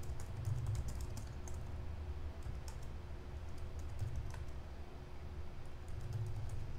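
Typing on a computer keyboard: faint, irregular keystrokes over a low steady hum.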